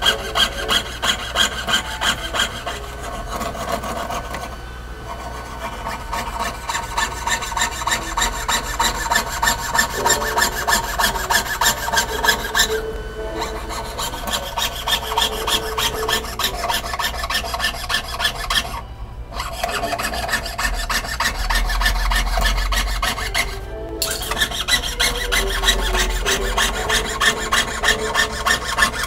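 Jeweller's piercing saw cutting sheet metal on a wooden bench pin: a rapid back-and-forth rasp of short, even strokes, about two to three a second, with a few brief pauses as the cut is steered.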